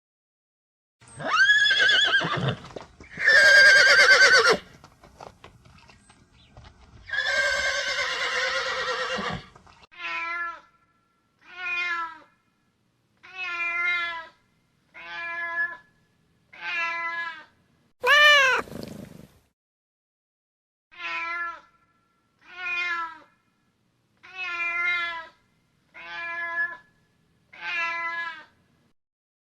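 A series of animal calls: first a few long, loud, rough calls, then about ten short pitched calls, each rising and falling, repeated roughly every second and a half, with one louder, longer call in the middle.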